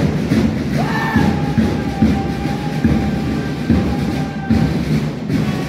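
March music with a steady drum beat of about two beats a second, accompanying a cadet march-past. A long held high note comes in about a second in.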